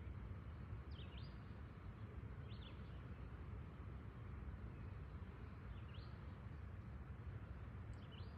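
A bird calling a few times, short quick sweeping chirps every couple of seconds, over a steady low rumble.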